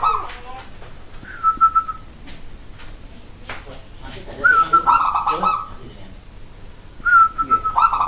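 Zebra dove (local perkutut) singing its cooing song. Phrases of short high notes run into a rapid rolling coo and repeat about every two and a half to three seconds, about three in all.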